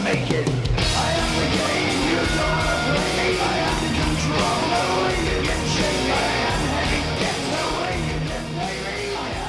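Loud rock music with singing, played over a sports hall's loudspeakers.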